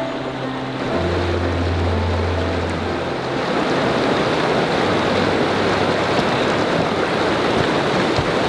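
Snowmelt-swollen mountain creek rushing loudly and steadily over rocks. Background music carries over the water for the first three seconds, then the water alone.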